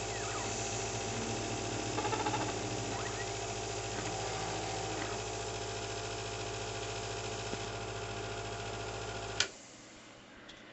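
Small CNC laser engraver running as its 3 W blue laser cuts double-sided tape, a steady mechanical hum with a few short whines that change pitch as the head moves. It shuts off with a click about nine seconds in.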